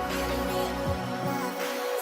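Background electronic music with a steady beat; about halfway through, the bass fades out and is gone near the end.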